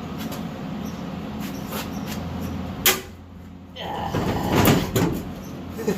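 Handling of a heavy truck rear axle assembly being maneuvered into place: a sharp knock about three seconds in, then a loud rough scraping or straining sound lasting about a second, and a few light clicks near the end.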